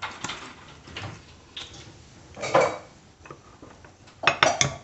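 A metal spoon scooping flour and clinking and scraping against a ceramic mug, in scattered light knocks with a quick run of clinks near the end.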